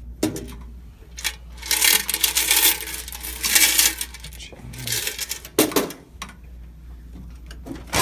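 Coins rattling and jingling in several bursts as a vending machine's coin box is handled, with a sharp clack a little past halfway.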